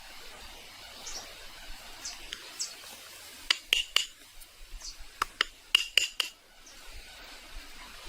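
Sharp clinks, like hard objects tapping together, in two quick clusters about a second and a half apart, over faint high chirps.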